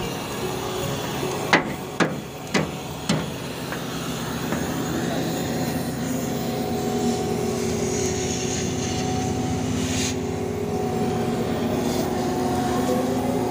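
Four sharp hammer blows on steel plate, about half a second apart, each ringing briefly, knocking at a torch-cut seam to break the piece off. A steady low hum runs underneath and carries on after the blows.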